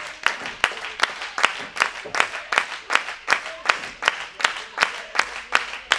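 Crowd clapping in unison at a steady pace, a little under three claps a second.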